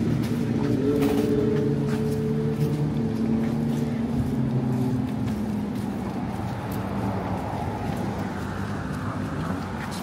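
A motor vehicle's engine running steadily on a city street, its hum fading after about five seconds, over general traffic noise.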